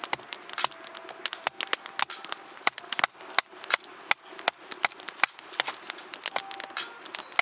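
Wood campfire crackling as it catches in its early stage, with frequent irregular sharp snaps and pops from the burning kindling.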